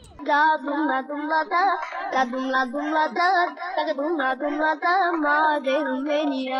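A high voice singing a melody with a wavering pitch, with no instruments heard; it replaces the pitch-side noise abruptly at the start.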